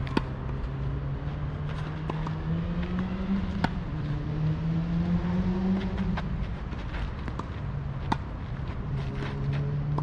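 Tennis ball struck by rackets in a rally: sharp pops near the start, about three and a half seconds in and about eight seconds in, with fainter bounces between. Under them runs a steady motor vehicle engine hum whose pitch rises and falls slowly.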